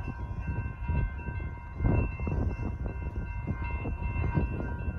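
Railroad crossing signal bells ringing steadily, warning that a train is approaching, over a low, uneven rumble.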